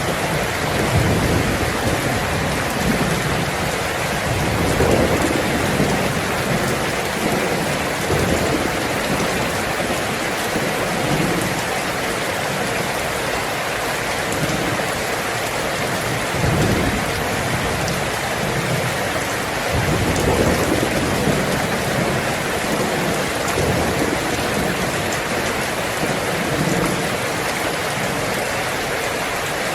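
Heavy rain falling steadily on a tin roof, with low rolls of thunder that swell and fade several times, strongest about five seconds in and again near twenty seconds.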